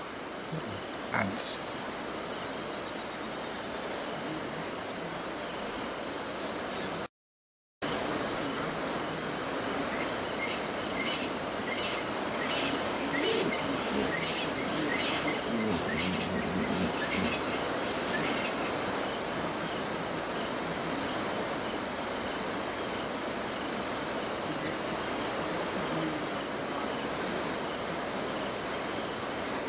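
A dusk insect chorus: one steady, high-pitched trill that goes on without a break. About seven seconds in, the sound cuts out completely for under a second.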